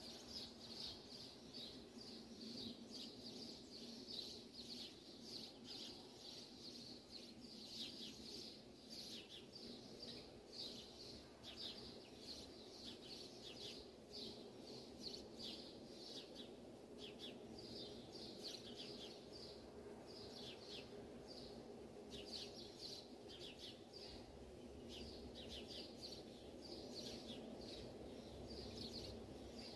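Faint, quick bird-like chirps repeating throughout, over a low steady hum.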